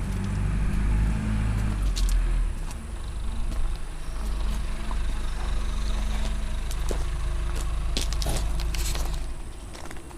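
Backhoe loader's diesel engine running with a steady low rumble, a few clicks and knocks over it; it drops away about nine and a half seconds in.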